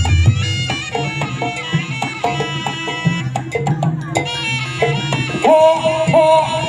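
Live jaranan accompaniment music: a Javanese gamelan-style ensemble of hand drums and struck, ringing metal gong-chimes playing a brisk, steady rhythm. The ringing chime notes get louder from about five and a half seconds in.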